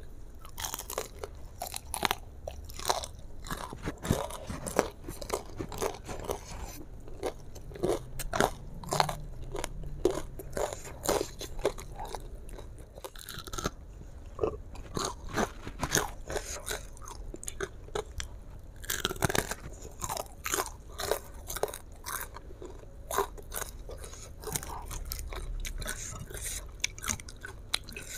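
Close-miked biting and chewing of crispy deep-fried chicken in chili sauce: many sharp crunches of the battered crust, mixed with chewing.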